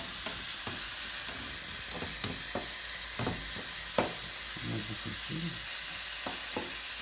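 Ground beef sizzling as it browns in a nonstick frying pan, with the frequent clicks and scrapes of a slotted spatula stirring and breaking up the meat against the pan.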